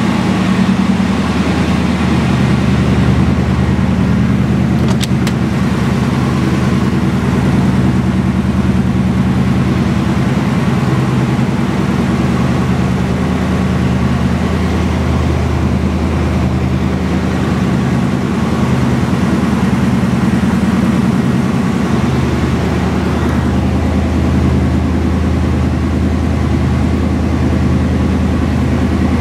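1957 Chevrolet Bel Air's engine idling steadily, a low, even exhaust note throughout.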